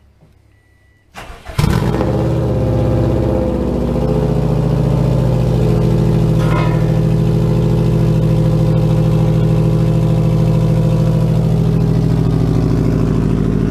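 A 2002 Subaru WRX's turbocharged 2.0-litre flat-four is started through a homemade straight-pipe exhaust with no muffler. It cranks briefly about a second in, catches and flares, then settles into a loud, steady idle.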